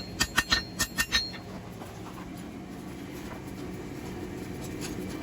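Light hammer blows on a steel bar over an anvil, about five quick ringing strikes in the first second or so, then they stop and a steady low hum carries on.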